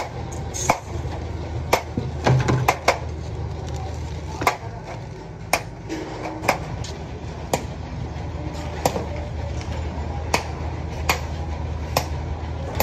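Hammer tapping a small punch held against a steel sheet template: sharp metallic taps at an irregular pace of about one a second, with a quick run of several taps around two to three seconds in, over a steady low hum.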